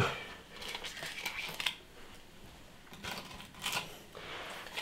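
Fire cement being scraped out of a plastic tub and worked onto the top of a cast iron fireplace range: an irregular string of short scrapes and light knocks, with a longer scrape near the end.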